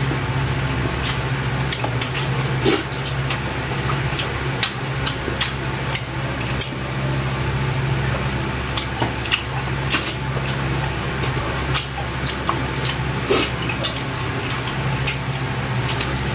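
Two people eating octopus adobo and rice by hand: wet chewing, lip smacks and sticky finger sounds, many short clicks scattered irregularly. A steady low hum runs underneath.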